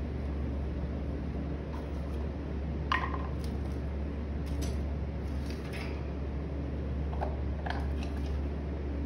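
Steady low electric motor hum, with a few short knocks and clinks as objects are handled and set down, the sharpest about three seconds in.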